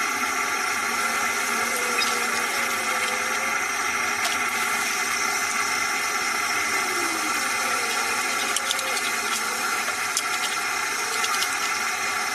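A machine running steadily with a hiss and several steady whining tones, with a few light clicks.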